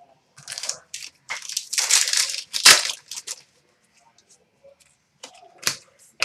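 Hockey card pack wrapper being torn open and crinkled: a run of rustling tears and crumples over the first three seconds or so, then a few light clicks and rustles as the cards are handled.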